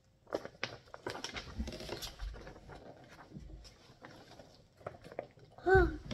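Paper rustling and crinkling as the pages of a glossy comics previews magazine are handled and flipped. Near the end there is a short high voiced sound, the loudest moment, from a child.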